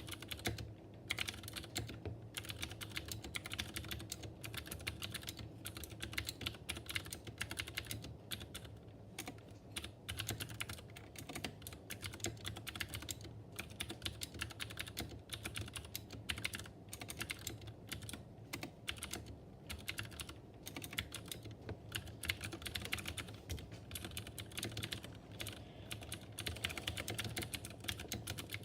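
Mechanical keyboard with clicky Cherry MX Blue switches and PBT keycaps being typed on: a fast, continuous run of keystroke clicks with a few short pauses.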